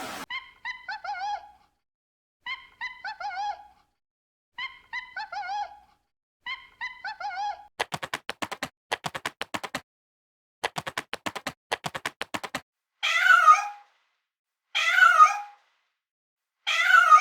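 Cat meowing: a short cluster of mews repeated four times in exactly the same form, then several seconds of a rapid pulsing rattle, then three louder, longer meows about two seconds apart.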